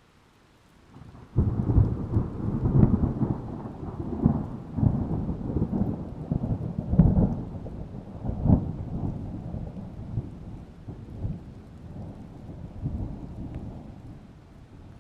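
A thunderclap breaks in suddenly about a second and a half in and rolls on as a deep rumble with several sharp cracks, then slowly dies away.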